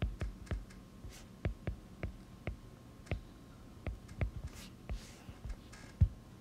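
Stylus tip clicking on an iPad's glass screen during handwriting: quick, irregular taps, two or three a second, with one sharper tap near the end.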